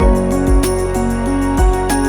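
Background music: a gentle keyboard melody over a bass beat that falls roughly once a second.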